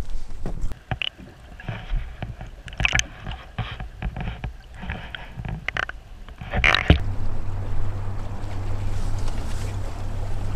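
Knocks and rustles of handling in a small fishing boat, then a sharp knock about seven seconds in, followed by a steady low boat-motor hum.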